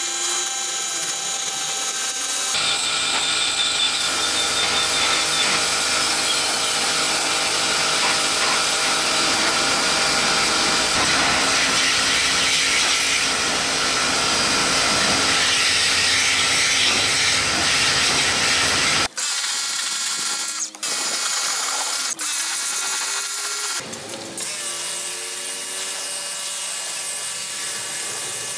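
Electric pressure washer running steadily, its motor and pump whining over the hiss of the high-pressure water jet spraying the pots and floor. The sound breaks off briefly a few times and changes tone in the last third.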